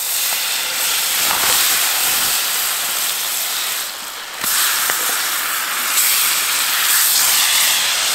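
Steak sizzling in a hot oiled honeycomb-textured frying pan, the sizzle starting suddenly as the first piece goes in. It dips briefly about four seconds in, then rises again as a second steak is laid in the pan.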